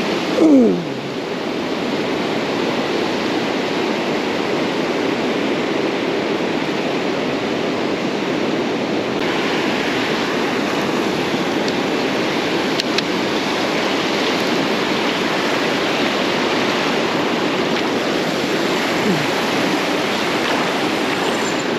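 Ocean surf breaking and washing up a sandy beach, a steady rush of noise that grows brighter after about nine seconds. About half a second in, a short loud sound slides down in pitch.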